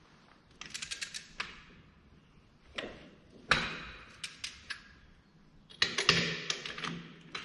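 A torque wrench set to 500 newton metres being worked round a tractor's wheel nuts: bursts of sharp metallic clicks and knocks, with a few louder knocks, separated by short pauses.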